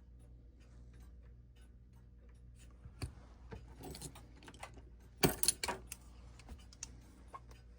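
Small metal tool clicking and scraping against a clock movement as a stuck part is worked loose without heat, with a quick cluster of louder metallic clinks about five seconds in.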